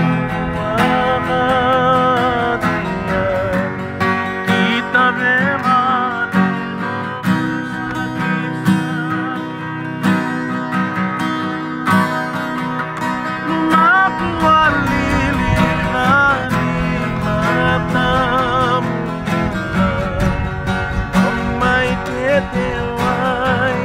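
Several acoustic guitars strummed together, with a voice singing a wavering melody over them.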